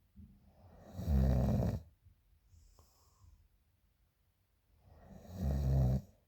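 A woman snoring loudly in her sleep: two loud, buzzing snores about four seconds apart, each swelling over about a second, with a soft breath between them.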